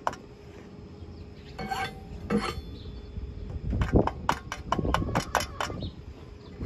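A quick run of sharp metallic clicks and crackles, about four to five a second for about two seconds in the second half, with a couple of earlier ones. It is a 4043 aluminum stick electrode tapping and sparking against thin aluminum beer cans as the welder tries to strike an arc.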